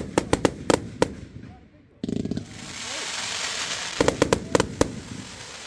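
Fireworks display: a rapid volley of sharp bangs from bursting shells, then after a short lull a sudden crackle that spreads into a long fizzing hiss. About four seconds in, another quick run of sharp bangs.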